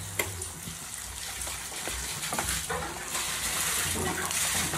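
Thick prawn gravy sizzling in oil in a pan while a wooden spatula stirs and scrapes through it; the gravy has cooked down until the oil separates. The hiss grows louder about three seconds in.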